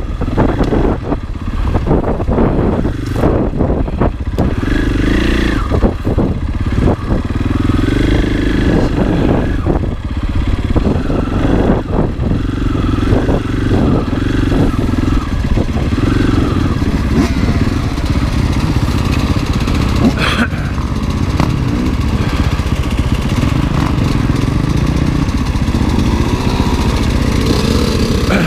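Single-cylinder four-stroke enduro dirt bike engine, a Husqvarna FE 501, running under way on a trail, its revs rising and falling through the gears. Frequent short knocks and rattles from the bike over rough ground, most in the first half.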